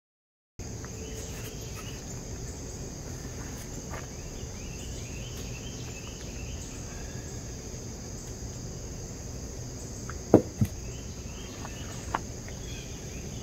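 Steady high-pitched drone of insects such as crickets, with a few sharp clicks near the end as the axle parts are handled.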